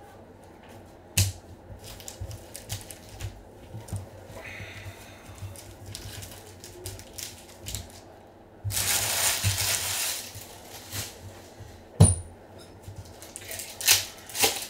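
Trading cards and packs being handled: scattered clicks and taps, with a stretch of rustling and crinkling of pack wrapper for about a second and a half in the middle.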